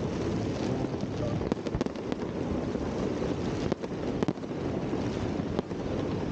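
Wind rumbling over the microphone of a moving electric unicycle, with distant fireworks popping and crackling now and then, in clusters about one and a half and four seconds in.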